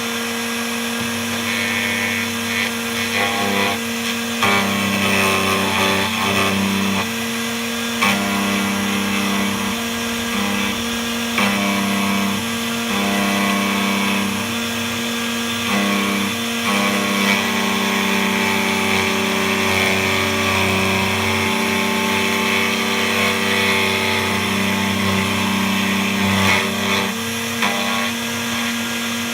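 DEFU 368A key cutting machine running, its motor giving a steady hum while the cutter mills a laser-cut track into a Honda key blank. A lower grinding note comes and goes every second or two as the cutter is traced along the key.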